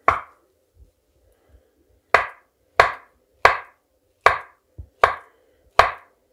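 Kitchen knife slicing a soft avocado into wedges, the blade knocking on a wooden cutting board at each cut: one knock, a pause of about two seconds, then six evenly spaced knocks about two-thirds of a second apart.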